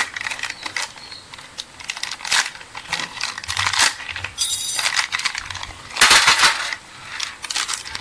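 Crinkling of a plastic wrapper and light clinks of small metal parts in a metal tray as a new starter-motor carbon brush set is unpacked, with a louder burst of crinkling about six seconds in.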